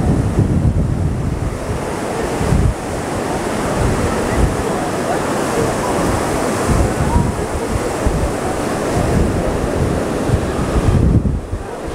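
Heavy sea surf breaking and washing in a continuous rush, with wind gusting and buffeting the microphone.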